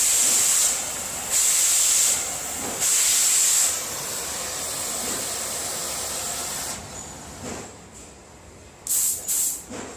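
Oxy-acetylene torch hissing steadily, with three louder surges of hiss in the first four seconds. The hiss drops away about seven seconds in, and two short bursts of gas follow near the end.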